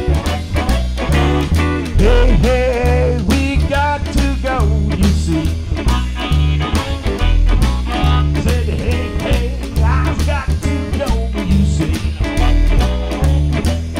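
Blues band playing a swinging tune: a harmonica cupped against a handheld bullet microphone carries the lead with bent, sliding notes over an upright bass stepping through notes, archtop electric guitar and drum kit.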